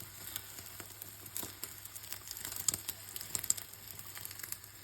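Egg omelette sizzling in a frying pan: a faint crackling hiss with scattered sharp pops, a few louder ones a little past the middle.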